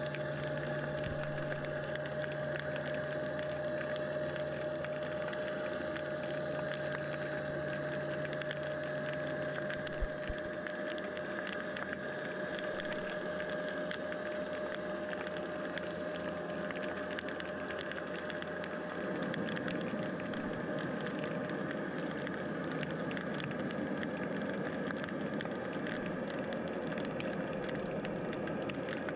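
Underwater harbour noise picked up by the camera: a steady mechanical drone with several held tones, like distant boat engines, over a fine crackle of clicks. A lower hum stops about ten seconds in, and a rougher rumble comes up a little past halfway.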